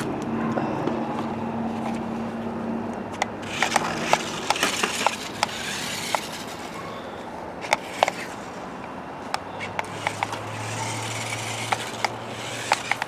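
Toy four-wheel-drive RC stunt car being driven back and forth. Its small electric drive motors hum while its rubber tyres roll over the ground, with many scattered clicks and knocks.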